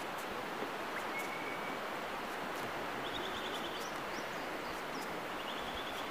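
Steady hiss of surf washing on a sandy beach, with faint small-bird calls over it: one short held whistle about a second in and two quick high trills later.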